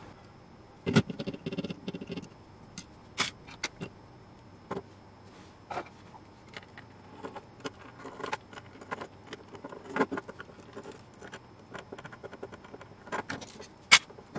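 Small screws and metal parts being handled during the disassembly of a circuit board from its metal housing: scattered clicks, taps and light scrapes on a wooden bench, with a sharp click near the end as a small part or tool is set down.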